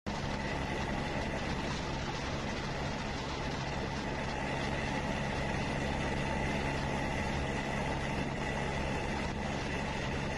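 Engine running steadily: an even low hum with a faint steady high tone above it.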